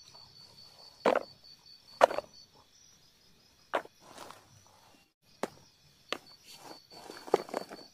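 Hands setting vegetables and small plastic jars down on a plastic chopping tray: a series of separate knocks and rustles, about one every second or so. A faint, high, pulsing insect trill runs in the background.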